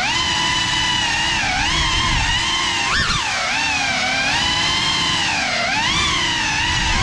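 Cinewhoop FPV drone's 6S brushless motors and ducted propellers whining, the pitch rising and falling with the throttle, with a sharp brief surge about three seconds in.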